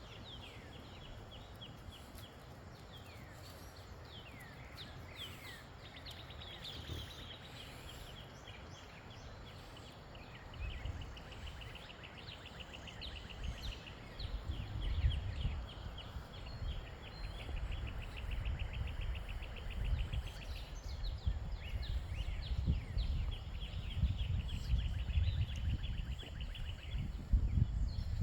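Birds singing: many short chirps and long, fast trills. From about ten seconds in, wind rumbles on the microphone, getting louder.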